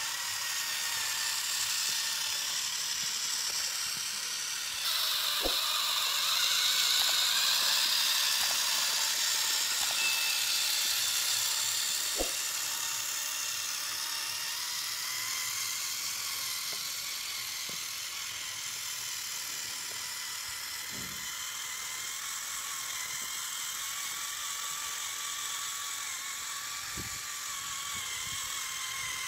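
Small electric drive motor and gearbox of a homemade RC model tractor whirring steadily as it pulls a leveling blade through sand, with a few faint clicks. The whir gets louder for a few seconds about five seconds in.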